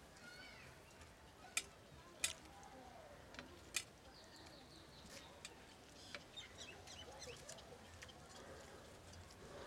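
Quiet sounds of eating by hand from steel plates, with a few sharp clicks of fingers or a metal bangle against the steel, the loudest about one and a half, two and four seconds in. Birds chirp faintly in the background.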